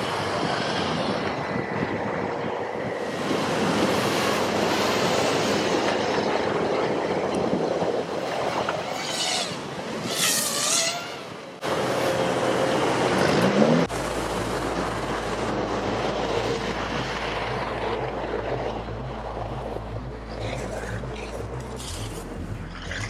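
Sherp amphibious ATVs' diesel engines running as their big low-pressure tires paddle them through icy open water, with water churning and wind on the microphone. The sound changes abruptly twice near the middle.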